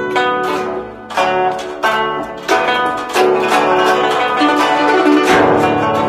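Guzheng played solo with plucked strings. A softer moment comes just before a second in, then hard, separate plucked accents about every two-thirds of a second, running into fast continuous plucking from about three seconds in.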